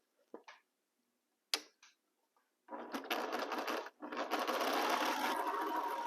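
Sewing machine: two small clicks, then about two and a half seconds in the machine starts stitching a seam. It stops for a moment and then runs on steadily.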